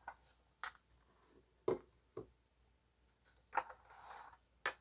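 Handling of a DNA kit's plastic packaging: about five short clicks and taps spread through, and a soft rub between the last two, as the plastic collection tube is pulled out of its clear plastic tray.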